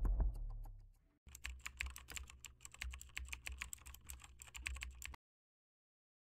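Typing sound effect: rapid, uneven key clicks starting about a second in and cutting off abruptly after about four seconds. The tail of intro music fades out just before the clicks begin.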